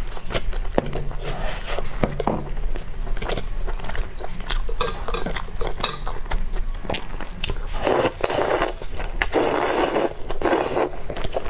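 Close-miked eating: biting and chewing braised pork trotter, with many wet mouth clicks and smacks, and several louder wet bursts of mouth noise in the last few seconds as she eats from her fingers.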